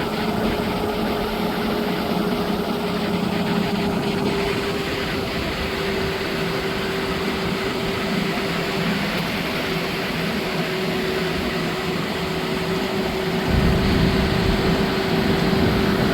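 A motor vehicle's engine running steadily with a constant hum, and a low rumble growing louder near the end.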